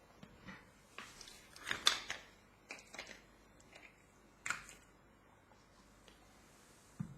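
A handful of small clicks and rustles, the sound of equipment being handled on a bench, the loudest cluster about two seconds in.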